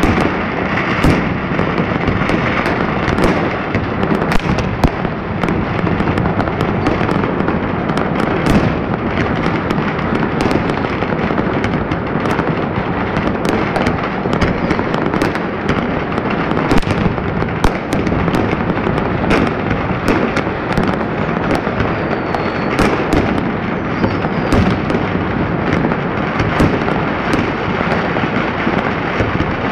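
Many fireworks going off at once, a dense unbroken crackle of bangs with louder single bangs scattered irregularly throughout.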